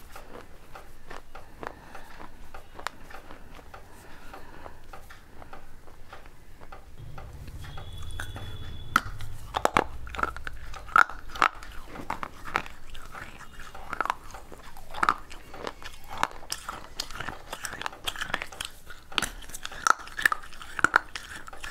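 A person biting off and chewing pieces of a clay pot, dry gritty crunching close to the microphone. Soft small crackles for the first nine seconds, then louder, sharper crunches come every half second or so.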